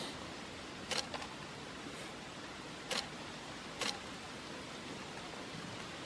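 Steady hiss of background noise, with a handful of short sharp clicks about a second apart in the first four seconds.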